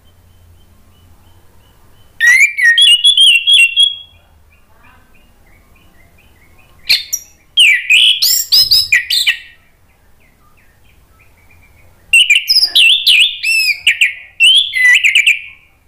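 Orange-headed thrush singing in full voice: three loud phrases of quick, varied whistles and warbles, each two to four seconds long, with pauses of a few seconds between them.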